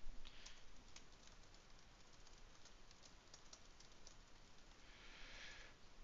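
Faint, scattered clicks of a computer keyboard and mouse, with a brief soft rush of noise about five seconds in.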